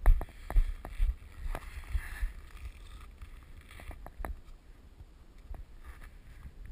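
Footsteps walking at an even pace, about two steps a second, fading after the first couple of seconds, with light rustling and knocks after that.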